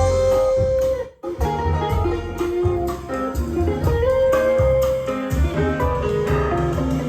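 Guitar music played back through an Akai GX-9 cassette deck. It breaks off briefly about a second in.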